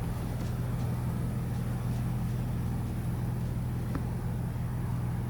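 Steady low drone of a vehicle's engine and road noise, even in level throughout.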